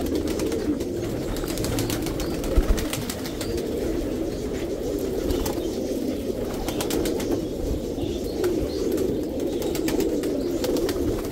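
Many domestic pigeons cooing together in a continuous low chorus, with scattered short clicks and one sharp knock about two and a half seconds in.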